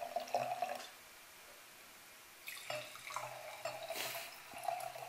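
Red wine poured from a bottle into a wine glass, in two pours: the first trails off about a second in, the second starts about two and a half seconds in. There is a sharp tick about four seconds in.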